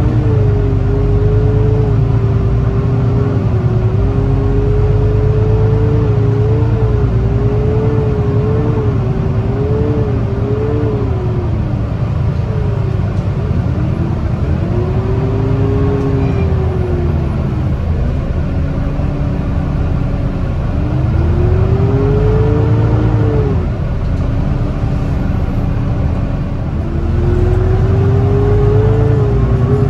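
Volvo B9TL double-decker bus heard from inside the passenger saloon. The low rumble of its 9-litre six-cylinder diesel runs under a whining tone that rises and falls several times with the bus's speed.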